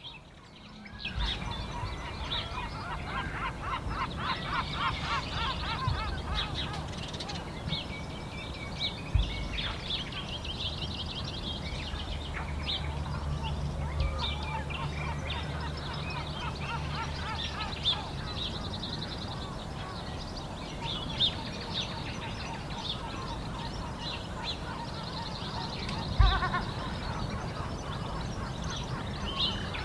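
Many birds calling over one another, with quick repeated call series, over a steady low rumble. A few dull thumps come at about 6, 9 and 26 seconds.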